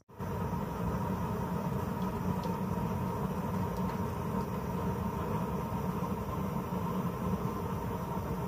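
Homemade used-oil burner stove running with its electric blower fan. The air and flame make a steady rushing noise with a constant motor hum.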